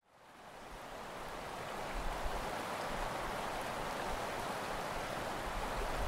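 Steady rushing of water, fading in over the first second.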